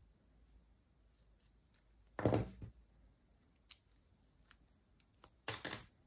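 Folded paper pieces rustling as they are handled and pressed together, in two short bursts about two seconds and five and a half seconds in, with a few faint ticks between.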